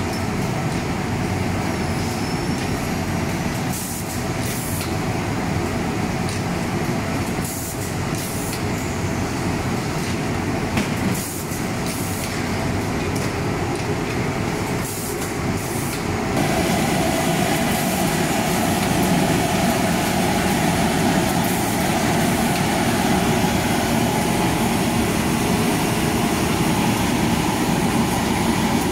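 Sock boarding and steaming machine (HELIOT Socksteam-MIDI) running steadily, with short hisses now and then. A little over halfway through, the noise steps up and becomes louder, with a steady mid-pitched hum.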